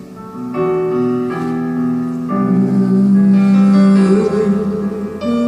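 Piano playing slow, sustained chords that change about once a second, an instrumental passage between sung lines of a ballad.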